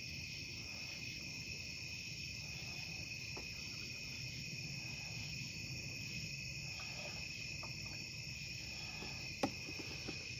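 Crickets chirring in a steady night chorus, with one sharp click about nine seconds in.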